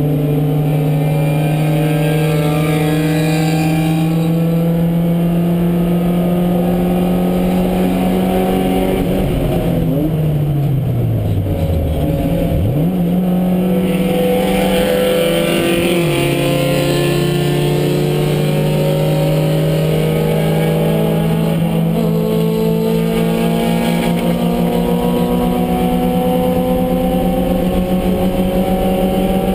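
Porsche 924 race car's four-cylinder engine heard from inside the cockpit, pulling hard at steady high revs. About a third of the way in the revs fall away for a few seconds and then jump sharply back up; just past halfway the pitch drops a step, as on an upshift, and climbs slowly again.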